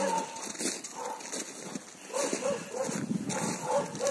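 German shepherd giving repeated short barks, several close together at times.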